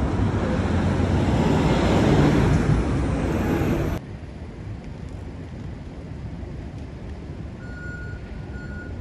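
Street traffic: a vehicle passing close, swelling about two seconds in, then the sound drops abruptly to a quieter steady traffic hum about four seconds in. Two faint short beeps come near the end.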